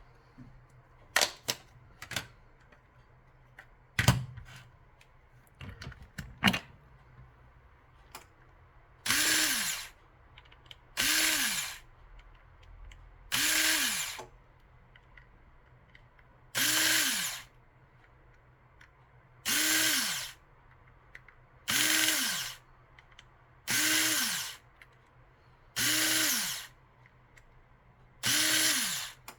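Small electric screwdriver running in short bursts of about a second, roughly every two seconds, its motor pitch rising and falling each time as it backs out the screws of a Galaxy Folder 2 flip phone's case. Before the bursts start there are several sharp clicks and taps of tools on the phone.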